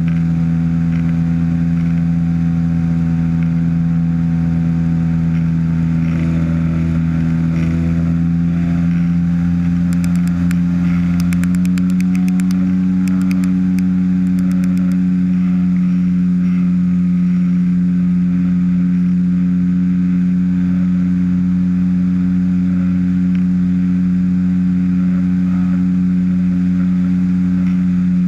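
Weight-shift ultralight trike's engine and pusher propeller running steadily in cruise flight, its pitch stepping up slightly about a dozen seconds in.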